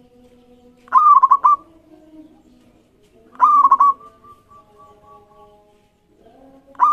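Zebra dove (perkutut) singing: two bursts of quick, ringing coo notes about two and a half seconds apart, with a third starting right at the end, over fainter, lower steady tones.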